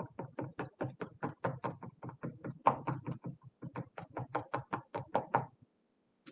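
Cotton swab dabbing paint onto a stretched canvas: a quick, even run of taps at about four or five a second that stops shortly before the end.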